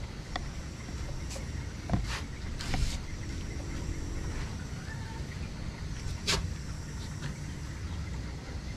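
A few sharp clicks and knocks, the loudest about two seconds in, again just before three seconds and about six seconds in, over a steady low rumble.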